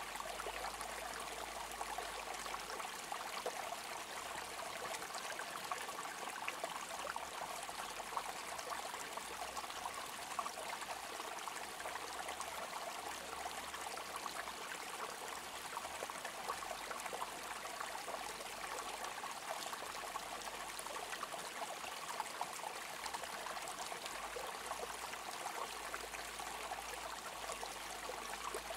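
Water flowing steadily: a continuous, even rush flecked with many small ticks and splashes.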